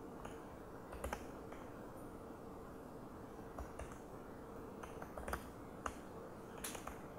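Irregular key presses on a laptop keyboard: about a dozen faint clicks in small clusters, the loudest near the middle. A faint steady hum runs underneath.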